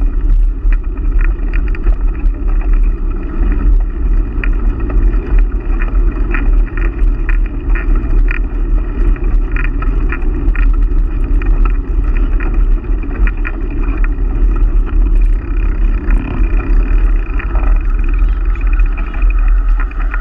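Steady wind rumble on the microphone and tyre noise from a bicycle riding over a rough asphalt trail, with frequent small irregular rattling clicks.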